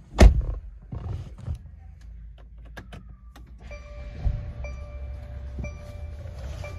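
A single loud thump about a quarter second in, then the Mercedes-Benz GLC 300's instrument-cluster warning chime sounding in short repeated tones about once a second as the ignition is switched on, over a low steady hum.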